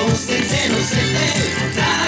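Yosakoi dance music with a steady beat and a gliding melody, with the clack of the dancers' wooden naruko clappers mixed in.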